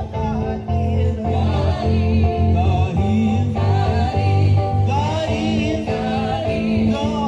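Women singing a gospel song into microphones, their held notes wavering in pitch, over a Roland RD-300SX digital keyboard playing sustained chords with a strong bass line, all amplified live.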